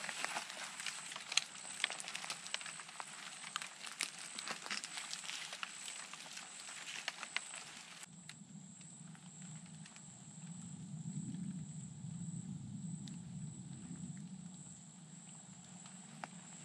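Footsteps crunching and crackling through dry leaf litter and brush, giving way about halfway through to quieter steps with a low rumble that swells and fades. A thin steady high tone runs underneath.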